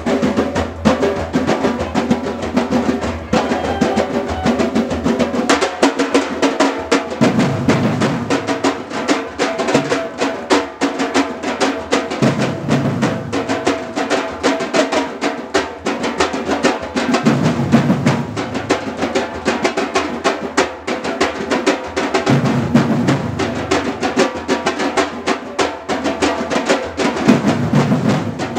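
A batucada drum ensemble plays a fast, steady rhythm on large bass drums and sticks. A deeper low swell comes back about every five seconds.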